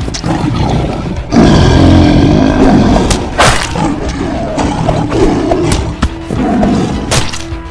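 Big-cat roar and growl sound effects over background music: a long, loud roar begins about a second and a half in, followed by shorter growls and a couple of sharp hits.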